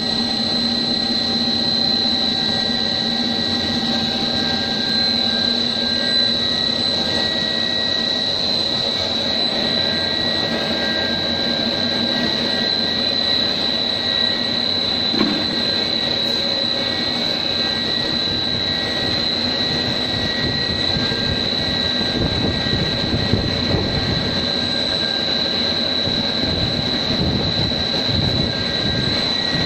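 Pet-food extruder production line running: steady machine noise with a constant high whine and a lower hum, and a little more low rumble near the end.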